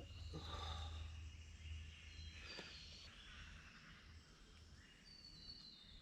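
Faint bush ambience: a few distant high bird calls that step down in pitch, over a steady low rumble.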